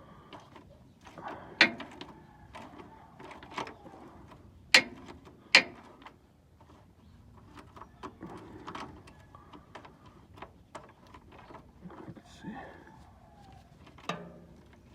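Wrench and socket knocking and clicking against the truck's oil drain plug as it is loosened: a few sharp metallic knocks, the loudest near the start and about five seconds in, with lighter clicks and scrapes between.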